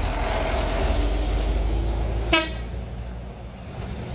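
Light trucks' engines rumbling as they pass close by, with one short, sharp horn toot a little over two seconds in. After the toot the rumble drops and fades away.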